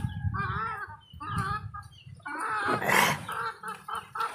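Chickens clucking in short, wavering calls, with a longer, harsher call about two and a half seconds in.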